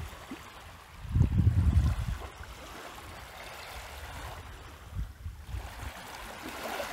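Small waves lapping and washing on a rocky shore. Gusts of wind buffet the microphone in low rumbles, the strongest about a second in.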